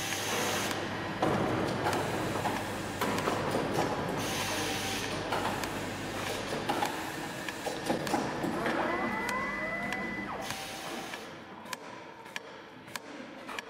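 Automatic tubing cutting and coiling machine running: a steady mechanical din with scattered clicks and three short bursts of hiss, and motor whines rising in pitch about two-thirds of the way through. Near the end it quiets to a regular light ticking.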